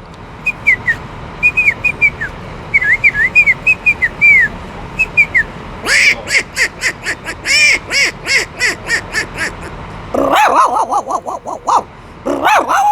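A man imitating farm animals with his voice: first a string of short, high chirps sliding down in pitch, then a louder, quicker run of about three calls a second, and near the end lower, fuller calls.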